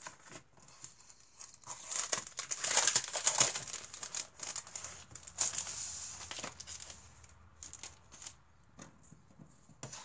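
Packaging of a pack of scrapbooking cards crinkling and rustling as it is handled, loudest about two to three seconds in, then dying down to a few light taps and clicks.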